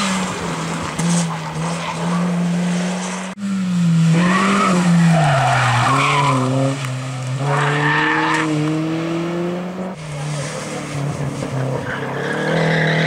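Hatchback race cars driven hard through tight bends one after another, engines revving up and down with gear changes. The tyres squeal in several bursts as they slide through the corners.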